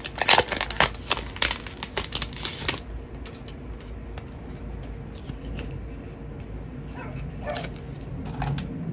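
Plastic photocard sleeve crinkling as it is handled and unwrapped, a dense crackle that stops about three seconds in. Near the end a dog barks twice, more faintly.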